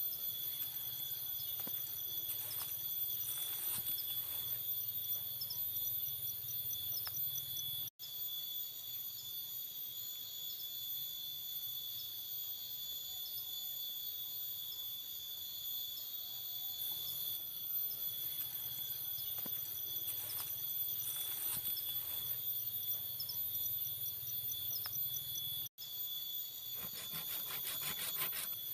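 Night insect chorus of crickets and similar insects: several steady, high-pitched trills layered together, with a rapid pulsing chirp over them. The sound cuts out for an instant twice.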